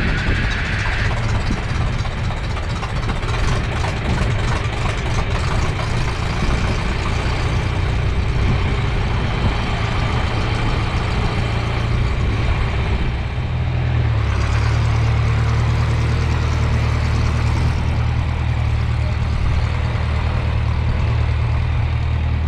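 A heavy vehicle engine running with a steady low hum, settling into a steadier, slightly louder drone about thirteen seconds in.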